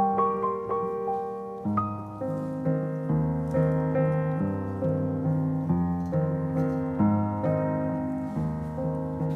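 Background music: piano playing chords and a melody, with lower bass notes coming in about two seconds in.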